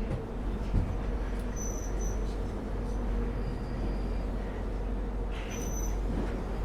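London Underground train running, heard inside the carriage: a steady low rumble, with a sharp knock about a second in and two brief high-pitched wheel squeals, one near the start and one near the end.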